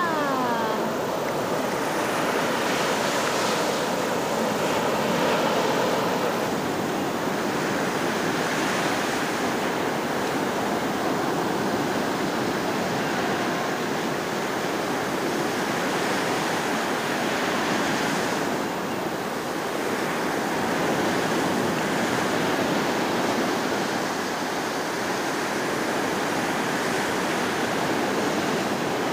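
Ocean surf breaking and washing in around the shallows, a steady rush that swells and eases a little in loudness.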